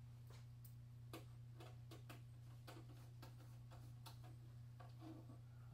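Faint, irregular clicking, two or three clicks a second, as small screws are driven into a switch's mounting bracket with a hand screwdriver. A steady low hum runs underneath.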